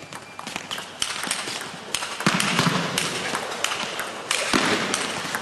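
Table tennis rally: a celluloid ball clicking off the players' bats and bouncing on the table in an irregular series of sharp taps. Background noise in the hall grows louder about two seconds in.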